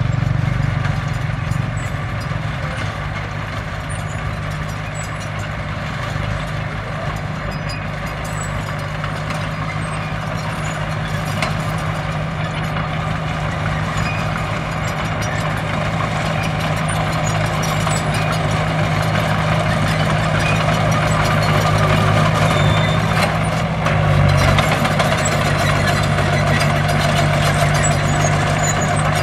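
Diesel engine of heavy earthmoving equipment running steadily, getting a little louder in the second half, with a brief change about three-quarters of the way through.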